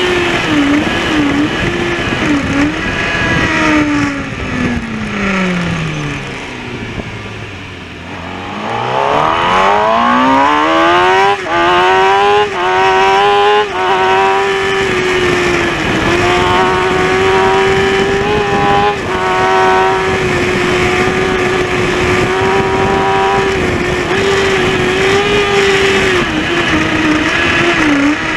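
Kawasaki ZX-6R inline-four racing motorcycle heard on board at high revs. About four seconds in it slows with stepped downshifts to low revs for a slow corner, lowest about eight seconds in. It then accelerates hard, its pitch climbing through three quick upshifts, and holds steady at high revs for the rest.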